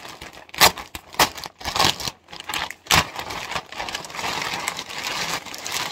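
Large plastic mailer bag crinkling and rustling as it is handled and pulled open. There are a few sharp crackles in the first three seconds, then a denser, continuous rustle.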